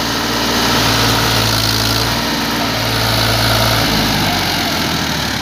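Powertrac Euro 50 tractor's diesel engine running steadily while stuck in mud. Its note changes slightly about four seconds in.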